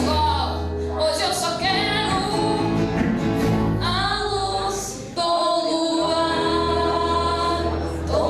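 Music with singing voices over instrumental accompaniment. About five seconds in, the sound dips briefly, then starts again abruptly with long held notes.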